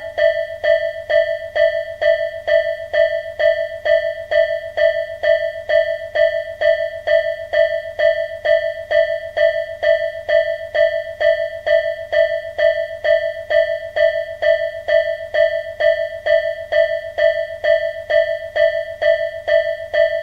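Japanese level-crossing warning bell ringing its steady 'kan-kan', a single bright ding repeated evenly about twice a second.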